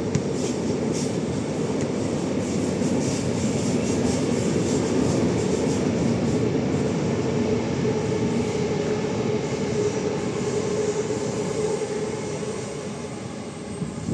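Sydney electric suburban train running along the line, a steady loud rumble of wheels and running gear that fades away near the end.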